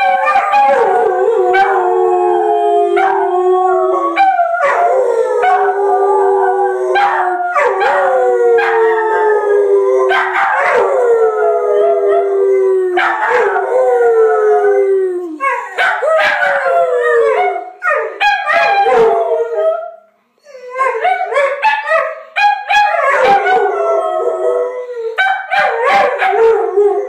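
A miniature pinscher and a boxer–pit bull mix howling together, their voices overlapping in long howls that fall in pitch. After about fifteen seconds the howls turn shorter and choppier, with a brief pause around twenty seconds.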